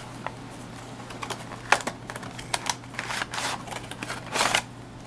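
Cardboard box and plastic packaging of a model train coach being handled and opened: scattered clicks and taps with short scraping rustles, the longest rustle near the end.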